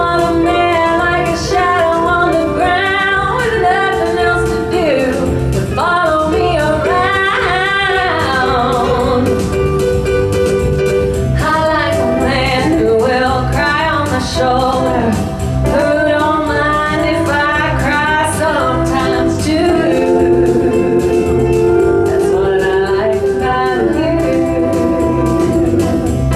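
A band playing, with a woman singing the lead into a microphone over a steady drum and bass beat.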